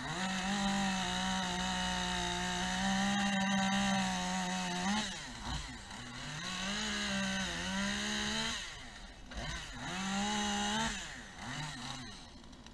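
Chainsaw cutting tree branches with a dull chain. It runs at high speed for about five seconds, then sags and picks up again in two shorter runs before winding down near the end.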